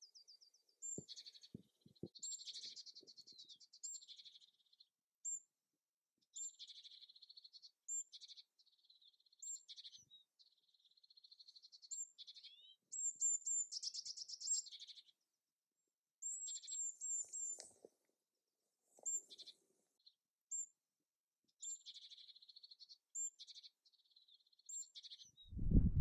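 A small songbird singing a high, thin song in short repeated phrases of quick trills and sharp high notes, a new phrase every second or two, with a few faint low clicks early on and in the middle.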